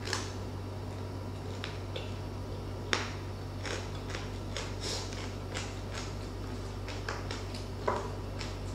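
Close-miked eating: chewing with irregular wet mouth clicks and lip smacks, and fingers working rice on a plate, with sharper clicks about three seconds in and near the end, over a steady low electrical hum.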